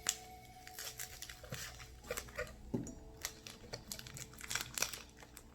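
Plastic snack wrapper on a wafer bar crinkling and tearing as it is pried open, in many short, irregular crackles.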